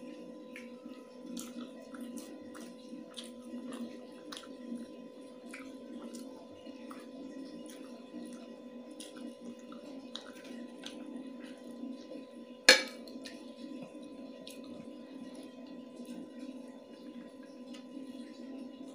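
Someone eating chicken biryani by hand from a plate: many small clicks of chewing and of fingers scraping and gathering rice on the plate, with one sharp knock against the plate about two-thirds of the way through. A steady hum runs underneath.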